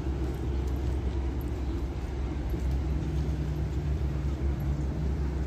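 Road vehicle running with a steady low rumble; a steady low hum joins about three seconds in.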